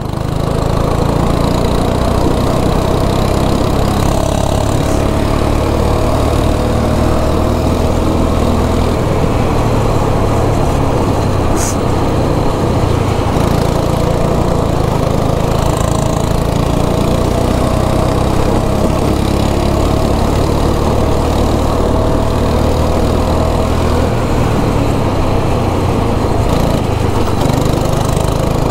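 A racing kart's small single-cylinder engine running steadily under throttle, heard from the driver's seat, its pitch holding nearly level as the kart laps the track.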